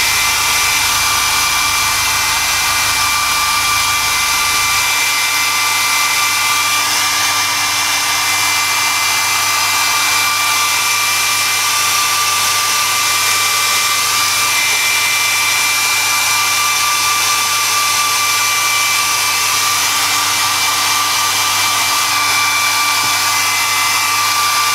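Hand-held hair dryer running steadily, a constant high whine over the rush of air, blown over freshly airbrushed paint on a plastic model to dry it.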